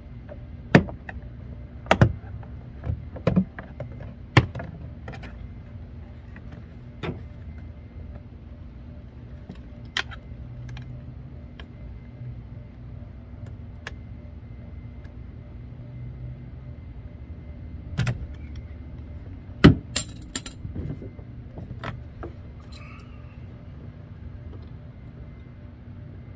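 Scattered sharp clicks and metallic clinks of small hand tools and parts being handled while working on a car's rear door, with a quick cluster of the loudest clicks about twenty seconds in.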